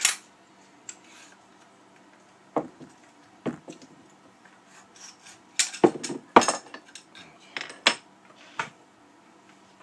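Sharp metallic clicks and clacks of an AR-15 upper receiver's parts being handled as its charging handle is worked, coming as scattered single strikes with a louder cluster a little past the middle.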